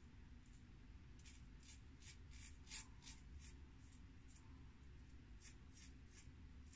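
Faint, short scratchy strokes of a 5/8 straight razor cutting through several days' stubble, about two to three a second, with a lull midway. The edge is keen and takes the growth easily.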